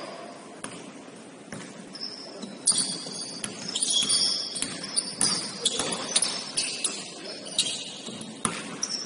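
Basketball bouncing on a hardwood gym floor, a sharp bounce roughly twice a second. From about three seconds in it mixes with short high-pitched squeaks of sneakers on the court and gets busier.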